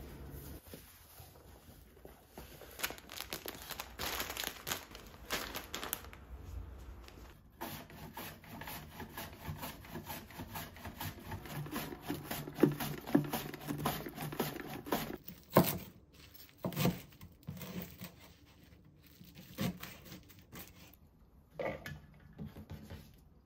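Onion being sliced on a plastic mandoline slicer: repeated rasping strokes of the onion across the blade. Then a few separate knocks of a kitchen knife on a wooden cutting board as watercress is cut.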